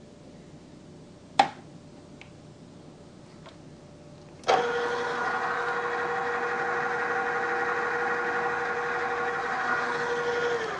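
A sharp click about a second and a half in. About four and a half seconds in, a drill press is switched on and its motor runs with a steady pitched hum, spinning a deburring tool in the chuck.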